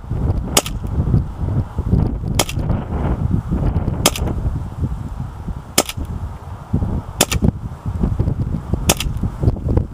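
KWA MP9R gas-blowback airsoft machine pistol firing six single shots, each a sharp crack, about a second and a half apart.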